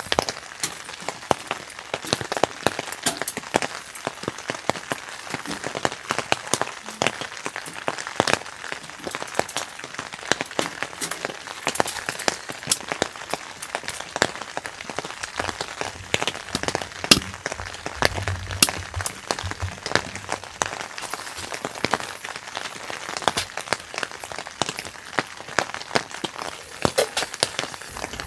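Rain falling on a tent, with many irregular drops tapping on the fabric over a steady hiss.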